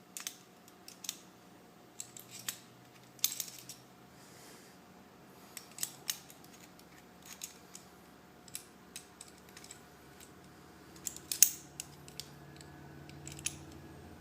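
Irregular metallic clicks and short scrapes of Mosin-Nagant bolt parts being handled and fitted together during reassembly, the sharpest click about eleven seconds in.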